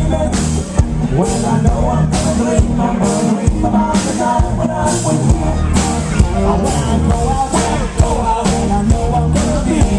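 Live rock band playing on drums, bass guitar and electric guitar, with a steady beat of about two drum hits a second.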